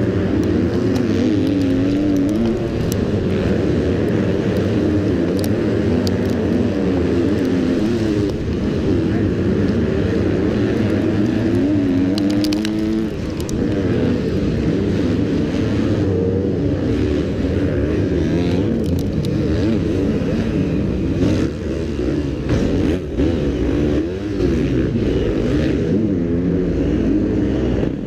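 Motocross bike engine heard from its own onboard camera, revving up and down over and over as the rider works the throttle and shifts, with the engines of the surrounding pack running underneath.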